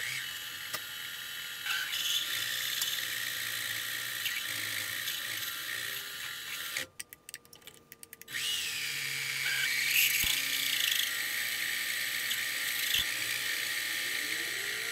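Mini-lathe running while a large twist drill in the tailstock bores into a steel bolt turning in the chuck: a steady machine whine with cutting noise. About seven seconds in the lathe stops for a little over a second, then starts again.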